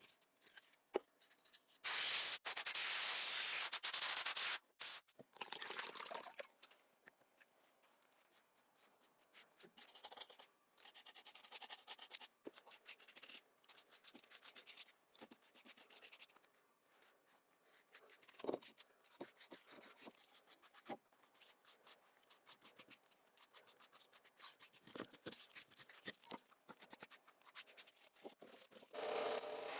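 Scraping and rubbing of hand work on an object, in short irregular strokes and clicks. About two seconds in, a steady hiss lasts roughly two and a half seconds.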